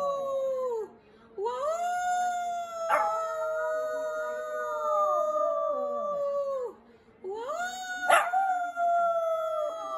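A Shih Tzu howling: the tail of one howl, then two long howls separated by short pauses, each swooping up at the start, held, then sliding down in pitch as it fades.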